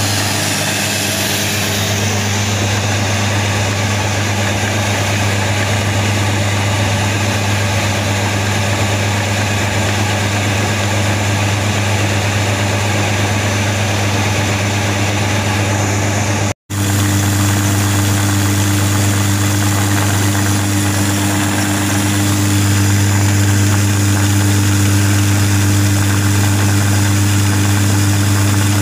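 Electric atta chakki (flour mill) running steadily while grinding rice into flour: a constant deep hum under a dense grinding rush. The sound drops out for an instant a little past halfway.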